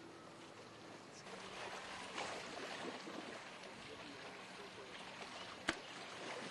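Water sloshing and splashing as an elephant moves about in a shallow pool, with one sharp knock near the end.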